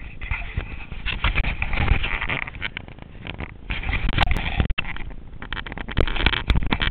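Irregular knocks, rustling and buffeting on an action camera's microphone as the camera is handled and moved about.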